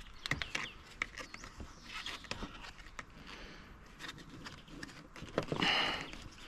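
Scattered light clicks and knocks of hands and tools working on parts, with a louder brief rustling scrape about five and a half seconds in.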